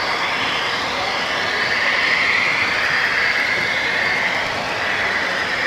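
H0-scale model trains running on the layout: the steady rolling noise of small wheels on track, with a high whine that drifts slightly in pitch.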